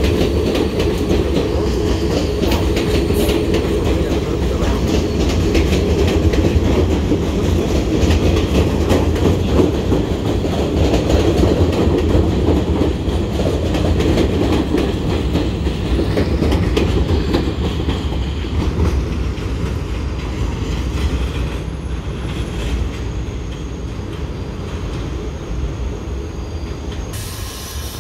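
New York City subway train of R46 cars rumbling along the platform track, with a steady clatter of wheels over rail joints and some wheel squeal. It grows quieter over the last ten seconds or so.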